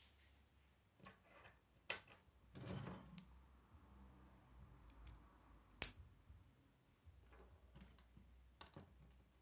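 Plastic K'nex gears and rods clicking as they are handled and snapped together: a few scattered clicks, the sharpest a little past halfway, and a brief scraping rustle about three seconds in.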